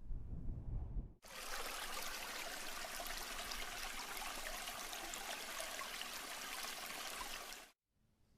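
A low rumble cuts off about a second in. Then steady running water, like a flowing stream, starts abruptly and stops just as abruptly near the end.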